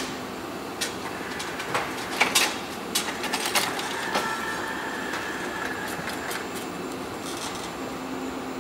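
Factory-floor machinery noise: a steady hum and rumble, with a run of sharp metallic clanks and clicks in the first four seconds and a faint high whine around the middle.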